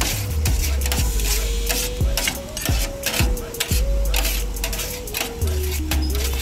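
A knife and metal scraper chopping and scraping cooked shawarma chicken on a steel tray, in quick irregular strokes. Background music with a beat and a bass line plays throughout.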